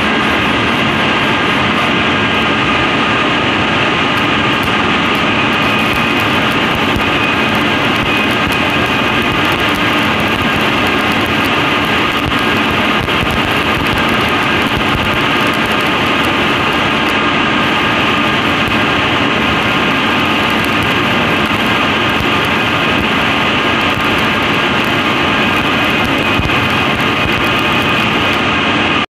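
Arc welding on a steel tea-factory CTC roller: a steady, unbroken crackle from the welding arc over a continuous machine hum.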